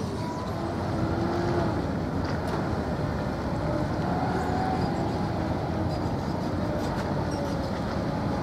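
Steady low engine rumble with a faint drone that wavers slightly in pitch.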